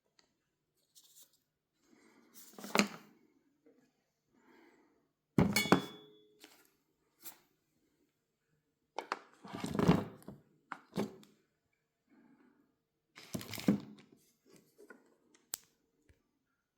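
Espresso machine parts and packaging being handled: scattered thuds and knocks, four louder ones among quieter bumps, one with a short ringing tone.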